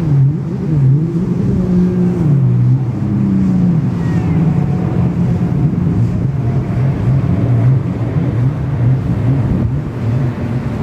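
Jet ski engines running on the water, their pitch rising and falling again and again as they rev up and ease off.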